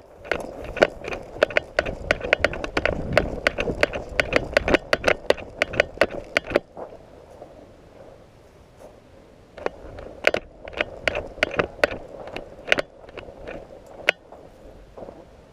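Quick footsteps with crackling and scraping, several a second, in two stretches: about six and a half seconds, a pause of about three seconds, then about four more seconds.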